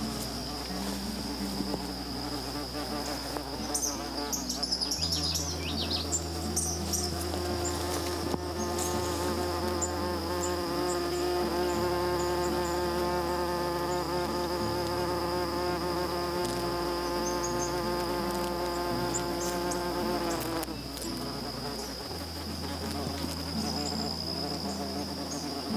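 Crickets trilling in a steady high-pitched chorus. A flying insect buzzes close by with a steady hum, starting about seven seconds in and stopping about twenty seconds in.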